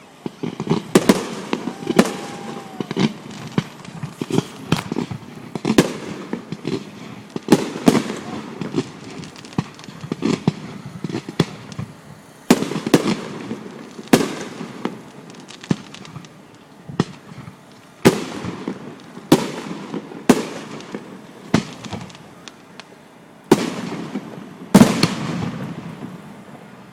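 Fireworks bursting in quick, irregular succession, sharp bangs each trailing off in an echo, several loud reports close together in places.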